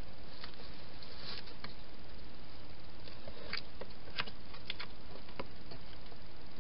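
Wild hedgehog moving through dry leaves and into a plastic feeding box: scattered light clicks and rustles, busiest about three and a half to five and a half seconds in, over a steady hiss.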